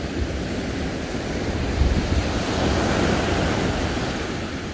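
Sea surf breaking and washing up the beach, with wind buffeting the microphone. The wash swells about two seconds in and eases off toward the end.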